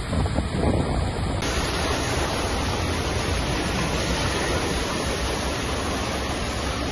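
Steady rush of floodwater running down a street, with spray from cars' wheels as they drive through it. The sound changes abruptly about a second and a half in.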